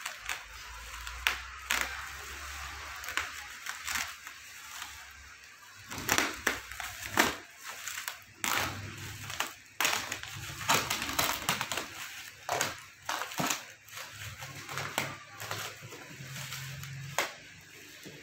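Cardboard box flaps and bubble-wrapped packaging being handled and pulled open by hand: irregular rustling, scraping and crinkling with many sharp crackles.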